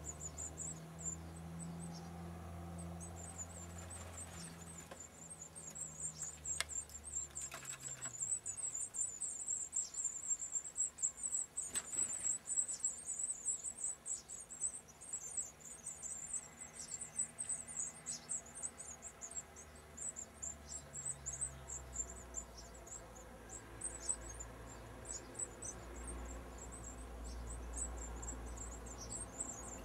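Pied wagtail nestlings begging: a continuous chatter of rapid, very high-pitched squeaks, loudest in the middle. A low hum runs underneath at the start and again near the end.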